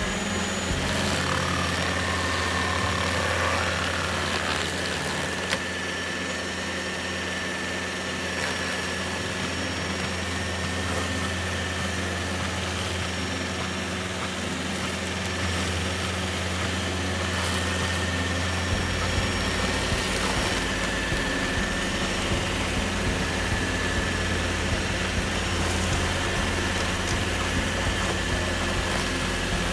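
Bandit SG-75 stump grinder running steadily under load as its cutter wheel grinds into a rotten stump. The machine's sound deepens about two-thirds of the way through.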